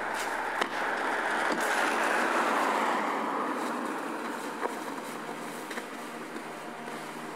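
Car doors being shut: a sharp knock under a second in, then fainter knocks later. Under them runs a rushing noise that swells about two seconds in and slowly fades.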